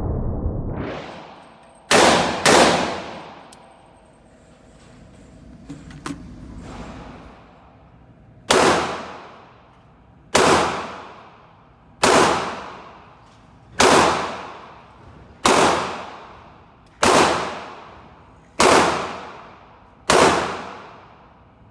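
300 Blackout AR-15 pistol with an 8.5-inch barrel firing. Two quick shots come about two seconds in. After a pause, eight evenly paced shots follow, roughly one every second and a half to two seconds, each trailing off in echo.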